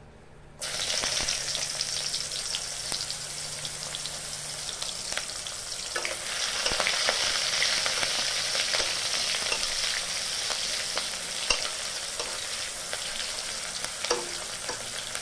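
Sliced onions dropped into hot oil in an iron kadai, setting off a sudden sizzle about half a second in. They keep frying with a steady hiss, while a steel spatula scrapes and clicks against the pan as they are stirred.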